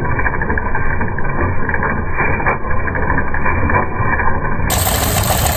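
Stationary engine driving a wood saw's chain drive, running steadily, heard slowed down and muffled with no high end. Near the end the sound suddenly turns brighter and fuller.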